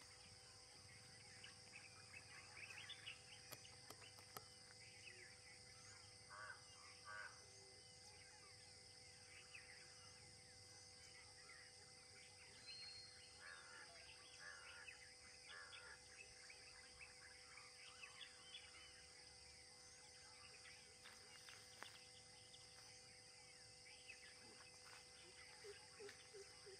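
Faint forest ambience: many birds chirping and calling on and off, over a steady high-pitched insect drone.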